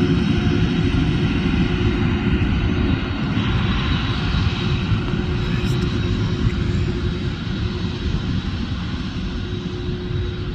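Boeing 767 twin jet engines at takeoff power: a loud, steady low rumble, joined by a thin high whine about three seconds in, slowly fading.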